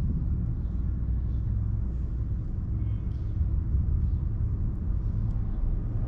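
Steady low rumble with no clear events.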